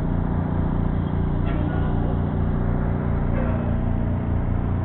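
A vehicle engine running steadily close by: a low, evenly pulsing rumble under a constant hum.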